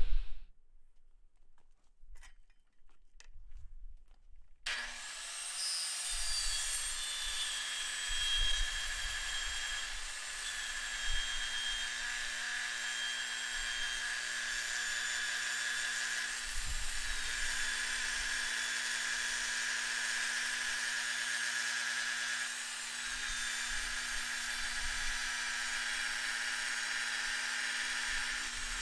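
Milwaukee 10-inch circular saw fitted with a West System scarfing attachment, cutting a scarf bevel across the end of a plywood sheet. After a few faint knocks, the motor starts about five seconds in and runs with a steady whine as the blade cuts.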